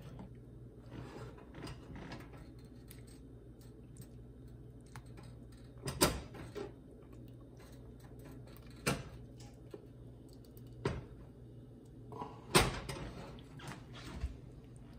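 A serving utensil knocking and clinking against the pot and bowl about five times as gumbo is dished over rice, the loudest knock late on, over a low steady hum.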